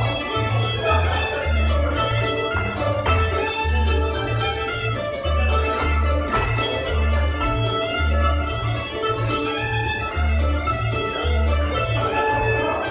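Live string band playing a dance tune, an upright bass keeping a steady, even pulse of low notes under the melody.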